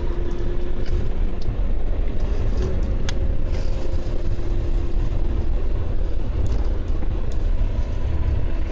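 BMW E30 on the move, heard from inside the car: a steady low drivetrain and road rumble with a thin steady whine that fades in and out. This is the drivetrain noise the owner suspects comes from the transmission, and it remains after a new prop shaft support bearing and flex disc.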